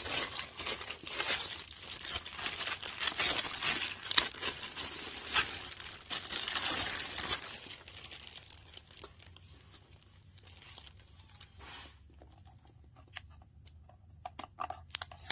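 Plastic packaging crinkling and rustling as a robot vacuum is unwrapped, busy for the first half, then quieter, with scattered clicks and handling knocks.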